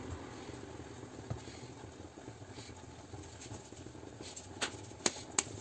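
Soft rustle of hands pinching off and rolling wheat-flour puri dough into small balls between the palms, with three sharp little clicks near the end.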